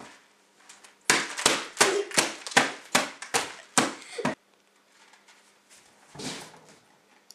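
Rapid hand smacks on a plate and a cloth-covered table: about nine sharp slaps, roughly three a second, over about three seconds. A softer scuffling noise follows near the end.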